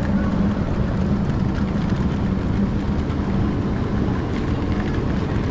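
Passenger train running: a steady low rumble.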